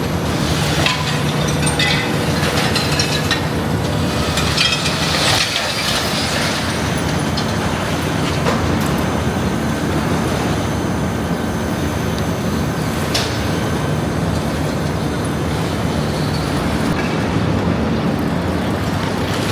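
A vehicle engine running steadily with a low hum, with crackling and clattering over it in the first few seconds.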